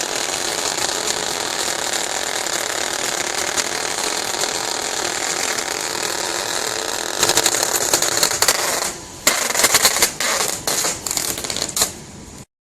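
UZU 800-series binding-strip cutting machine running with a fast, even mechanical clatter. About seven seconds in it turns to louder, irregular clicking, dips briefly near nine seconds, then stops abruptly near the end.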